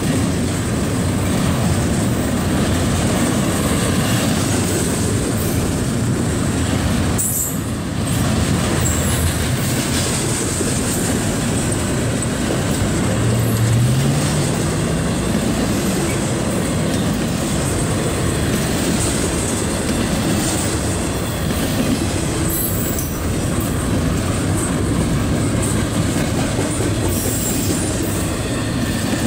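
Double-stack intermodal freight train's container well cars rolling past: a steady loud rumble of steel wheels on the rails with clickety-clack over the joints and a few brief high wheel squeals.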